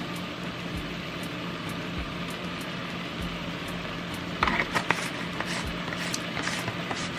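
Ground turkey sizzling in a stainless steel pot on the stove, a steady hiss. A few light rattles and taps about four seconds in as a spice shaker is shaken over it.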